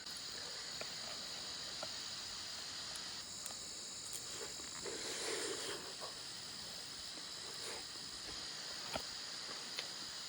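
Insect chorus: a steady, high chirring drone.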